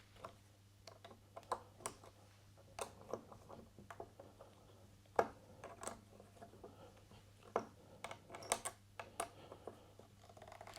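Irregular light clicks and knocks of metal parts and tools being handled while setting up work in a small lathe's chuck, over a steady low hum.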